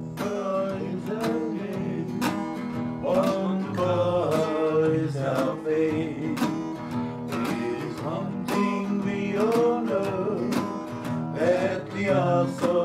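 A man singing while strumming an acoustic guitar, with regular strum strokes under the melody.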